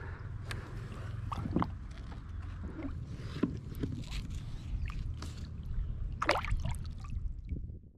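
Water splashing and sloshing against a kayak as a guitarfish is lowered into the water and released, with small knocks on the hull over a steady low wind-and-water rumble. A louder splash comes about six seconds in, and the sound stops abruptly near the end.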